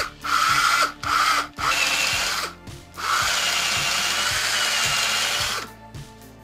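Power drill with a 10 mm wood-boring bit drilling into a wooden lure body: several short bursts, then a longer steady run of nearly three seconds that stops shortly before the end.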